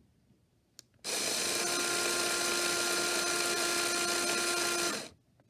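Small Lego electric motor from a Lego train set running steadily, a high whirring whine that starts about a second in and cuts off about a second before the end.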